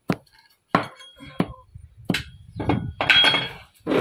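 A hatchet striking lumps of shell rock (soft coquina limestone) on a cloth over concrete, crushing it into grit: a run of irregular sharp knocks and clinks, roughly two a second, with a longer gritty crunch about three seconds in.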